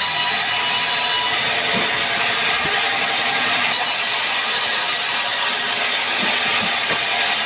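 Band sawmill running steadily while sawing sengon (Falcataria) timber into boards, a loud, even high hiss from the blade, with a few light knocks.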